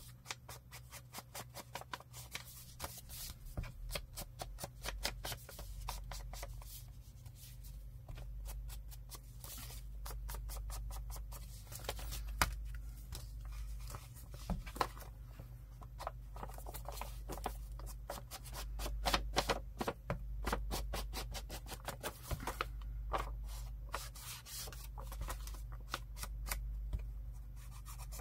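Hands handling paper journal pages: rustling, rubbing and many small taps and clicks, with a few sharper taps, over a steady low hum.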